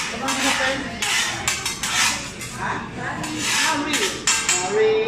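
Metal spatulas clattering and scraping on a steel teppanyaki griddle, a rapid run of uneven clinks and taps, with voices underneath.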